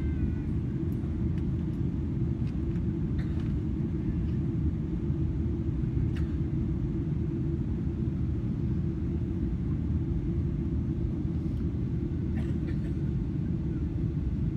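Cabin noise inside a Boeing 777-300ER airliner in flight: a steady low rumble of engines and airflow, with a few faint ticks from the cabin.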